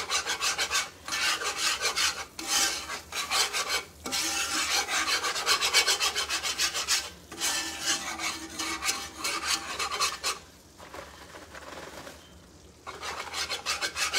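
Metal wire whisk scraping rapidly around a cast-iron skillet, beating flour into hot oil for a roux, in quick rhythmic strokes of about four a second. The whisking pauses for about two seconds near the end, then starts again.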